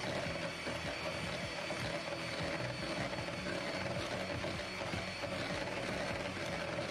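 Electric hand mixer running steadily at one speed, its beaters whisking a creamy cake mixture in a bowl, with a steady motor whine.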